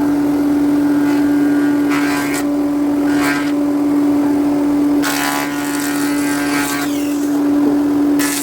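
A motor running with a steady hum throughout, with several bursts of harsher noise over it: short ones about two and three seconds in, a longer one from about five to six and a half seconds, and another just before the end.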